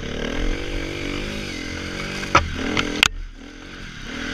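Dirt bike engine revving up and down while being ridden. Two or three sharp knocks come a little past halfway, after which the engine drops to a lower, quieter run.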